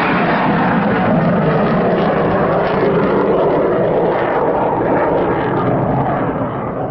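Loud, steady jet engine noise from a Chengdu J-20 stealth fighter climbing away just after takeoff, easing slightly near the end.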